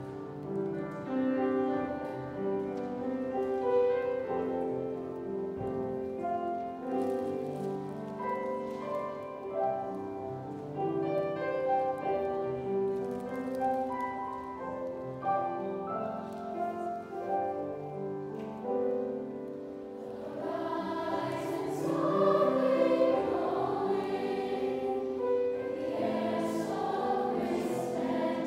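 Children's choir singing a slow choral piece with piano accompaniment. The voices swell louder and fuller about two-thirds of the way through.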